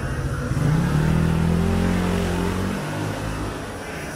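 A motor vehicle engine running close by, revving up about half a second in, holding a steady higher pitch, then dying away near three seconds in, over general street noise.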